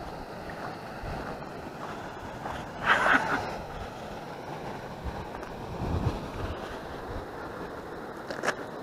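Wind buffeting the microphone in a steady low rumble, with a brief louder scuffing noise about three seconds in.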